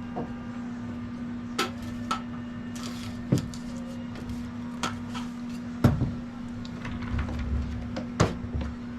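A steady low hum with scattered sharp knocks and clicks, about half a dozen, the loudest near the middle.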